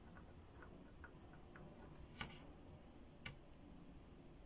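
Faint clicks and taps of small plastic toy pieces being handled, with two sharper clicks about two and three seconds in, as a plastic flame piece is taken off a toy oil barrel.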